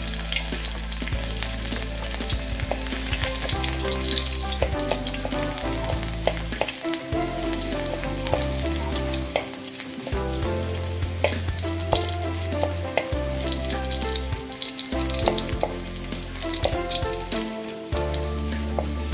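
Chopped garlic sizzling as it fries in hot oil in a stainless steel wok, the first step of the sauté. A wooden spatula stirring it scrapes and knocks against the metal in many short clicks over the hiss.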